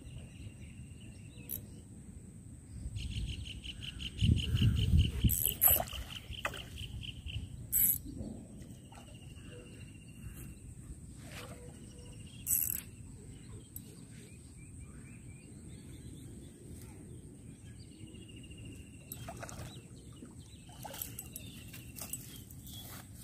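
Birds calling in repeated short trills, the longest a few seconds in, over a steady high tone and low rumbles of wind on the microphone, with a few sharp clicks scattered through.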